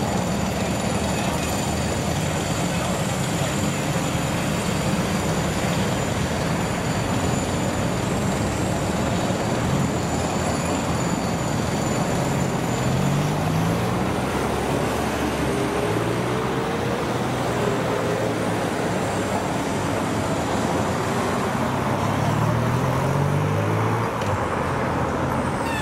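Motorcade of cars, vans and police motorcycles driving past on a city street: steady traffic noise, with engines rising in pitch as vehicles accelerate past about halfway through and again a few seconds before the end.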